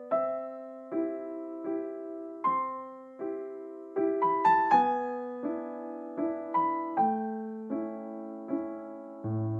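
Background music: a slow, gentle piano melody, with notes struck about every three-quarters of a second, each one fading away.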